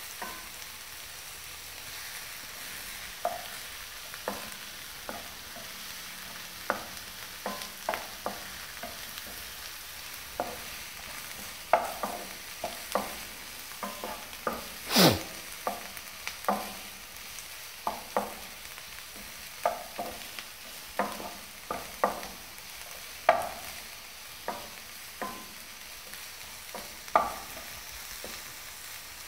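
Chopped onion and capsicum frying in oil with a steady sizzle, while a stirring utensil scrapes and knocks against the pan at irregular intervals. One louder, longer scrape comes about halfway through.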